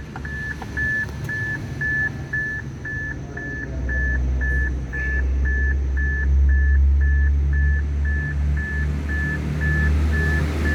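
An electronic warning beep repeating evenly, about two short beeps a second, over a low hum that swells about four seconds in.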